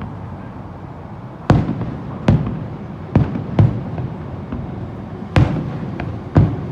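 Fireworks bursting: about six sharp booms at irregular intervals, two of them close together near the middle, over a steady low rumble.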